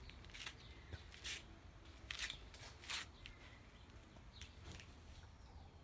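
Faint outdoor garden ambience: a few short bird chirps and scattered crackling rustles over a low rumble.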